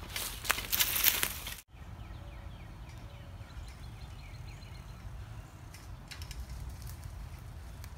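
A mountain bike rolls past close by on a leaf-strewn dirt trail, its tyres crackling and crunching through dry leaves and twigs; the sound cuts off suddenly about one and a half seconds in. After that comes a steady low wind rumble, with faint bird chirps and a few light crunches of tyres on leaves from further away.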